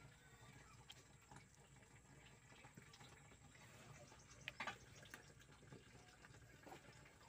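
Near silence: faint room tone with a few soft clicks, the loudest a brief cluster about four and a half seconds in.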